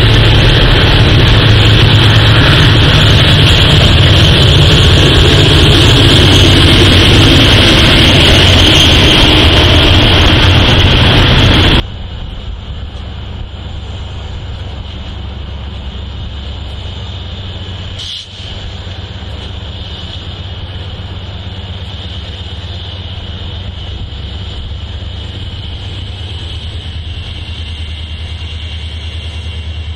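Norfolk Southern diesel locomotive passing on the main line, a loud steady rush of engine and wheel noise. About twelve seconds in it cuts off suddenly to a much quieter, steady low diesel drone from a Union Pacific locomotive and following units rolling slowly through a yard.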